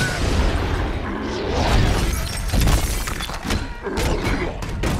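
Film sound effects of a heavy crash: glass shattering and repeated heavy thuds and smashes as two giant figures plough through a building, with music underneath.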